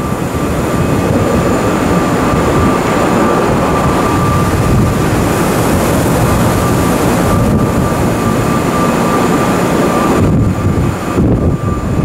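Chiba New Town Railway 9800 series train standing at the platform, its onboard equipment running with a steady rushing hum and a thin, steady high whine over it.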